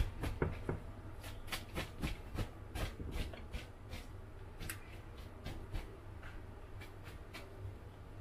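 Cotton steaming cloth rustling and being peeled off a mound of half-steamed glutinous rice in a plastic bowl: irregular light clicks and rustles, busier in the first few seconds and thinning out toward the end.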